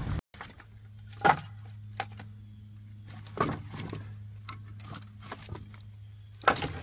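Split firewood pieces knocking and clacking as they are handled and stacked onto a woodpile: a sharp knock about a second in, another about three and a half seconds in, and lighter clacks between. A steady low hum runs underneath.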